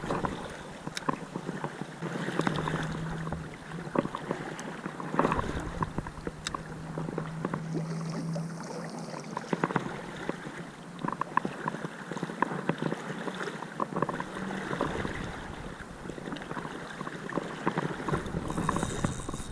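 Creek water running steadily, with scattered small clicks and knocks over it.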